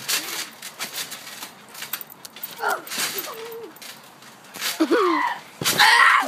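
Children giving short yelps and squealing cries as they wrestle on a trampoline, with scattered thumps and rustling from bodies landing on the mat. A louder burst of noise and shouting comes near the end.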